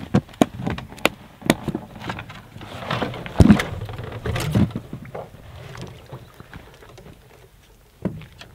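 Irregular knocks and thuds of gear being unloaded from a canoe, the loudest about three and a half seconds in, tapering off after about five seconds with one last knock near the end.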